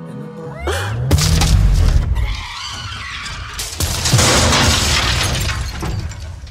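Car crash: tyres screeching, then loud crashing with glass shattering and breaking, in two heavy bursts about a second in and about four seconds in, fading away near the end.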